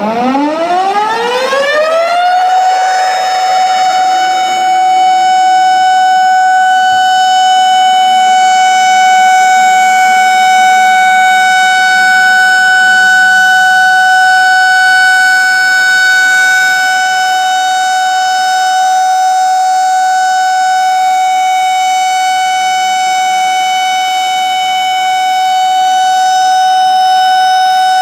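Dam discharge warning siren winding up from a low pitch to a steady high wail about two seconds in, then holding that tone. It signals that water is about to be released through the dam gates.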